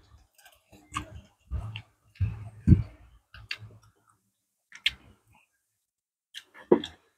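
Spoons and chopsticks clicking and scraping against ceramic plates and bowls while eating, in scattered irregular taps, with a few low soft thuds in the first few seconds.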